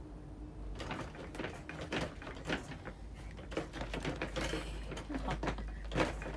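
Rapid, irregular plastic clicks and knocks as a pedestal fan and the plastic storage box it stands on are handled and jostled, over a low steady hum.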